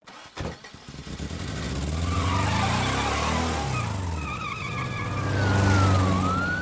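A car engine revving as it passes by, its pitch sweeping up and then down. Near the end a siren starts to wail, dipping and then rising.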